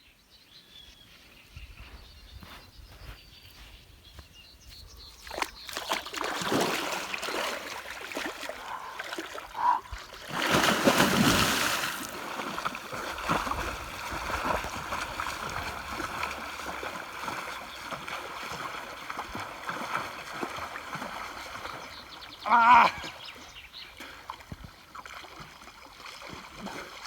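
A person wading into a river and splashing in the water. The splashing builds after a few seconds, with one big splash around ten seconds in, then keeps going more softly. Near the end a person gives a short loud exclamation.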